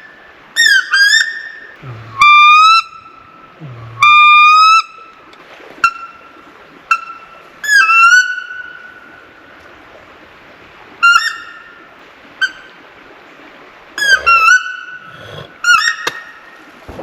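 Wood duck call blown in about a dozen short, loud, rising squeals, in irregular bursts with pauses between.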